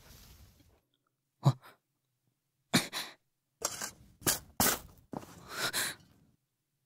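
Shovel digging into packed earth: a series of short scraping strokes at irregular intervals, the first with a dull thud.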